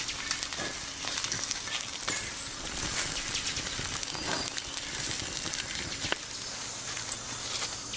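Campfire crackling, with many short irregular pops and clicks over a steady hiss.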